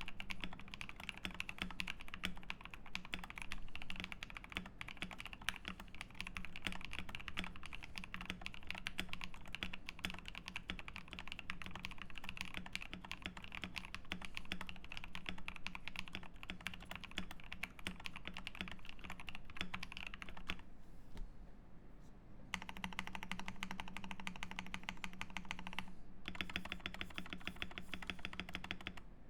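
Fast, continuous typing on a KBD67 Lite R3 mechanical keyboard with lubed NK Cream linear switches, a polycarbonate plate, case and switch foam, and PBT keycaps. The keystrokes stop for about two seconds roughly two-thirds of the way through, then resume.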